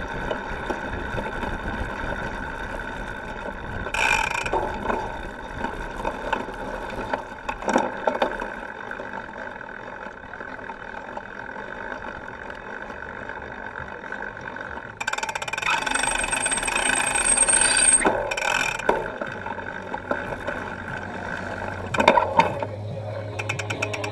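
Cyclocross bike in motion heard close to the rear wheel: the chain, drivetrain and frame rattle over rough ground, with the tyres rolling on grass and then through sand, where the noise grows louder for a few seconds about halfway through. Occasional sharp knocks come from bumps.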